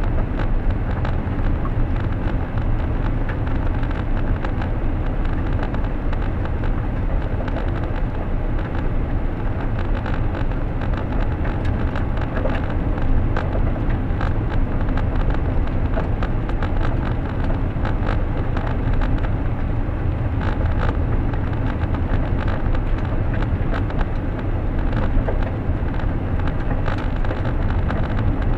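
A car driving at a steady pace, with a continuous low rumble of engine and tyre noise and many faint small ticks and knocks from the road surface.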